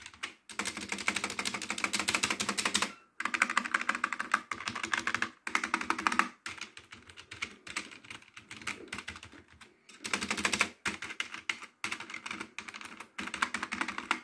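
Keys of a Mad Dog GK500 metal-topped membrane keyboard being typed on fast, a dense clatter of keystrokes in runs of a few seconds with short pauses between them. After about six seconds the typing turns lighter and more broken.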